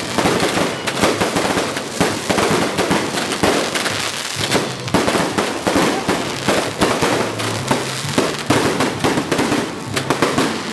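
Fireworks barrage going off: a dense, continuous run of launches, bangs and crackling bursts, one after another with no pause.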